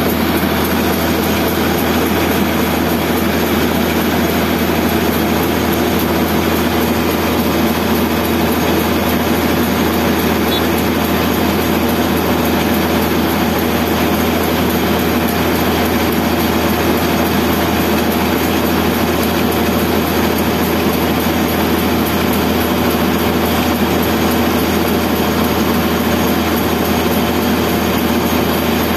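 Steady drone of an engine-driven machine with a continuous hiss, as a hose blows out the tendon duct of a post-tensioned concrete girder to clean it before grouting.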